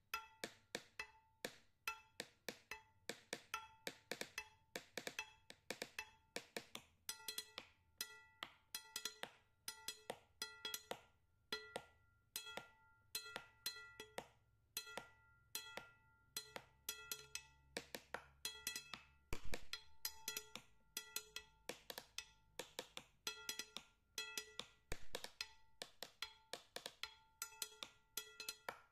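Background music of light, wood-block-like percussion: quick knocked notes, about three or four a second, each ringing briefly at a few fixed pitches in a steady repeating pattern.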